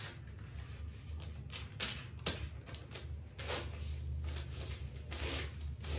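Sheets of white kite paper rustling and sliding as they are handled and smoothed by hand on a table, in short irregular swishes, over a steady low hum.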